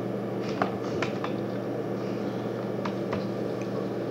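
A few scattered computer keyboard key clicks, keys being pressed to delete typed text, over a steady electrical hum of a fan.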